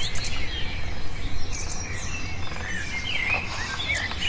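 Birds chirping and calling in short, scattered phrases over a steady low rumble.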